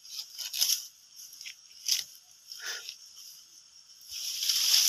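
Dry sugar palm fibre (ijuk) rustling and tearing as it is pulled off the trunk by hand: a few short scratchy crackles, then a longer, louder rustle from about four seconds in.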